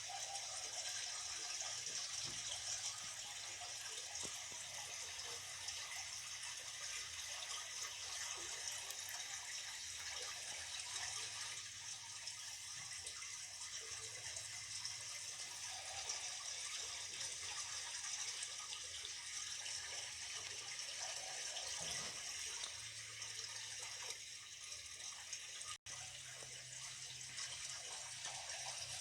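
Steady sound of running water, an even hiss with no breaks.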